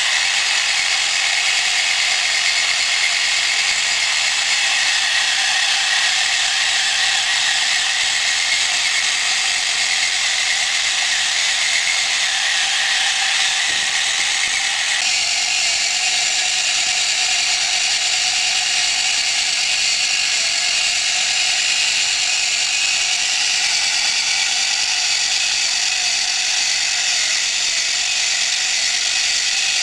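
Small electric motor driving a plastic gear train in a model crawler tractor, running steadily with a whirring gear noise. The tone changes slightly about halfway through.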